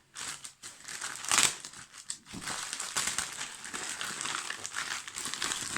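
Parcel packaging crinkling and rustling as it is handled and opened, with a louder crackle about a second and a half in.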